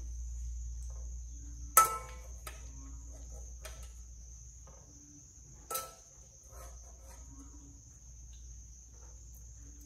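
Metal spoon clinking and scraping in an aluminium pot of rice porridge as it is stirred and scooped, with a sharp clink about two seconds in and a smaller one near six seconds. A steady, faint high whine runs underneath.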